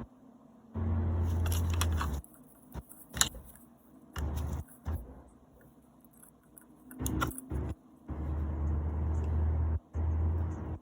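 An electric power tool switched on and off in several short runs, each starting and stopping abruptly with a steady low hum, with metallic clicks and rattles between the runs.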